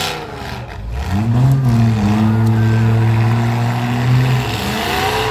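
Compact demolition-derby car's engine revving: it climbs about a second in, holds at steady high revs for about three seconds, drops, then revs up again near the end.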